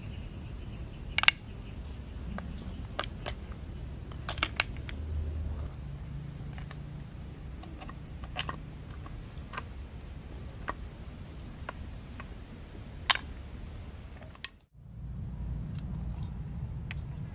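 Insects trilling steadily in a high, constant band, with scattered sharp clicks and knocks as field snails and a stirring stick strike a small clay pot. The insect sound cuts off abruptly near the end.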